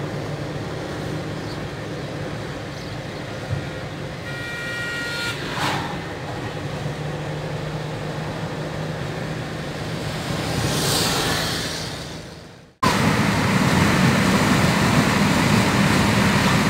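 Car driving along a highway, heard from inside: steady engine and road hum, with a vehicle horn sounding for about a second about four seconds in and a vehicle passing near eleven seconds. After a sudden cut near thirteen seconds, louder wind and road rumble.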